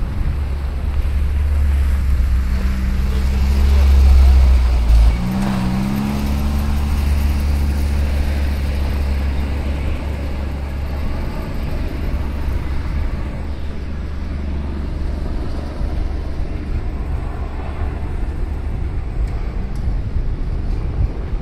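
City waterfront ambience: a steady low rumble, with an engine passing whose pitch rises about five seconds in.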